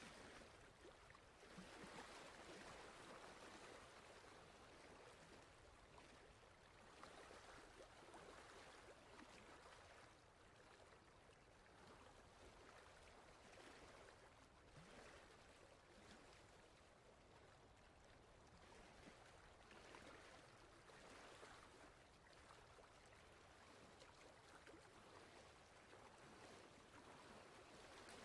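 Very faint, steady rushing of running water, swelling and easing gently every few seconds.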